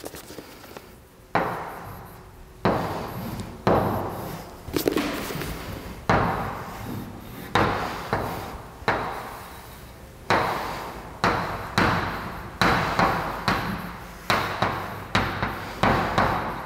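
Chalk drawing lines on a chalkboard: a string of sharp taps, each trailing into a short scrape, about one a second and coming faster in the second half.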